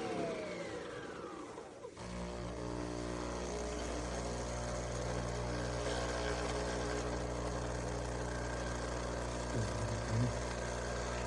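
Nespresso machine motor winding down with a falling whine, then a steady mechanical hum starts about two seconds in and runs on.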